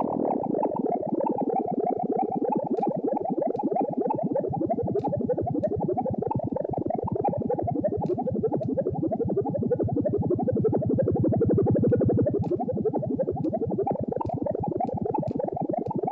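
Vital software synthesizer playing a dense, rapid stream of short droplet-like blips through a steep band-pass filter that a fast sine LFO wiggles back and forth, giving a bubbly, watery texture. It swells slightly louder a little after the middle.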